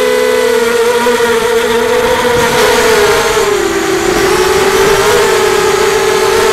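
FPV racing drone's electric motors and propellers whining loudly, heard close up from the aircraft itself, with air rushing past. The pitch dips a little about halfway through, then holds steady as the drone swoops low over the field.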